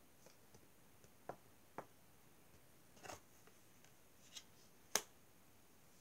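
Oracle cards being handled on a cloth-covered table: about five faint, short clicks and taps as cards are touched and picked up, the sharpest near the end, over near-quiet room tone.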